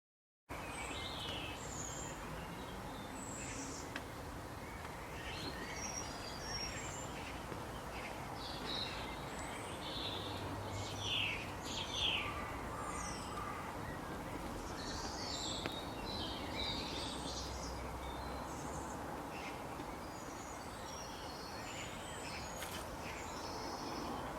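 Birds chirping with many short, high, scattered calls over a steady background hiss. It starts abruptly about half a second in.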